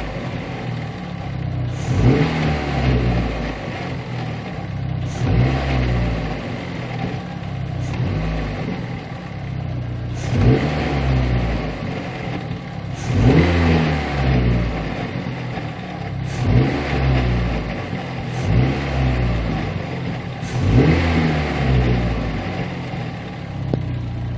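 Second-generation Dodge Neon's four-cylinder engine revved in repeated short blips every two to three seconds, its pitch rising and falling back each time. The owner is revving it to bring out a strange engine noise he cannot identify.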